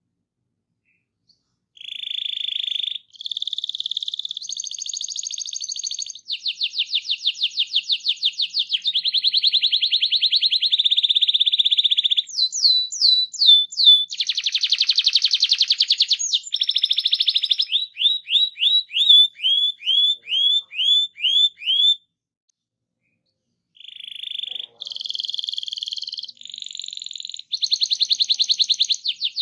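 Domestic canary singing a long rolling song: fast trills and rapidly repeated high notes changing from phrase to phrase, including a run of quick down-sweeping notes. It starts about two seconds in and breaks off for a couple of seconds near the end before resuming.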